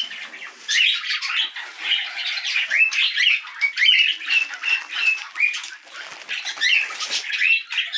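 A room of caged budgerigars chirping and squawking, with many short rising and falling calls following one another throughout.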